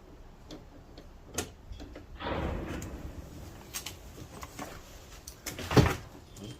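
Small clicks, a brief scraping rustle about two seconds in and one louder knock near the end. These are hands and tools working the handle's linkage rods and plastic clips inside a car door.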